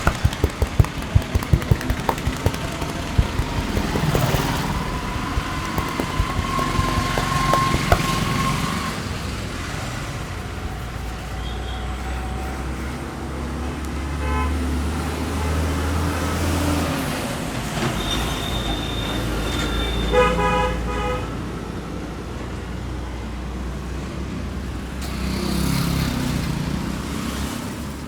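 Road traffic with vehicle horns honking: a single held horn tone about a quarter of the way in, a heavy engine passing in the middle, and a louder multi-tone horn blast about two-thirds through. A few quick sharp taps sound at the very start.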